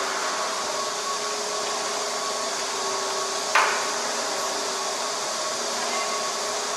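Steady mechanical hum and hiss with a faint steady tone, like ventilation or machinery running, broken by one sharp knock a little past halfway.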